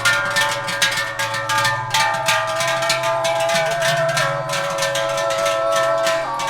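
Many large cow bells clanging together continuously as the herd moves along, the strokes overlapping irregularly under a few long held ringing tones, one of which wavers near the end.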